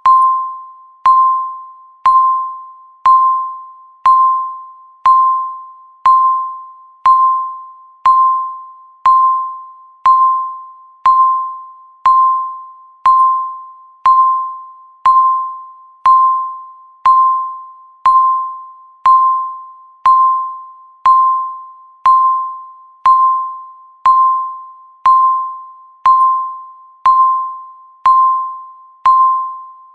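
Countdown timer beeping once a second: a single pitched electronic beep near 1 kHz that starts with a click and fades quickly, repeated evenly, one beep for each second left.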